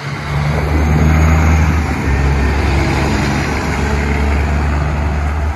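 Semi-truck's diesel engine running loud through its exhaust stacks as the truck drives past close by, with a deep, rough, pulsing note that swells in the first second and stays loud.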